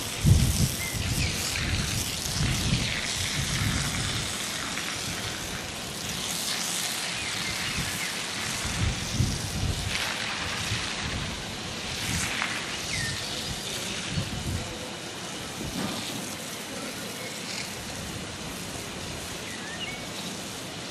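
Outdoor ambience: a steady hiss with wind buffeting the microphone in gusts, strongest in the first few seconds and again around nine seconds, and a few faint bird chirps.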